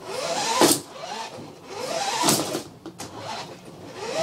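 Toy remote-control car's electric motor whining up in pitch as it speeds up, twice, each run ending in a brief clatter.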